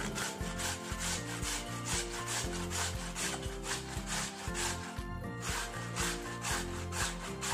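Raw potato being grated on a flat stainless-steel grater: rasping strokes about three a second, with a short break about five seconds in.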